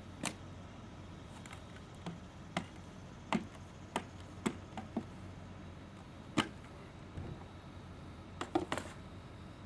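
Scattered sharp plastic clicks and knocks, irregularly spaced, from a 5-gallon plastic bucket of polymer bonding resin being opened and stirred.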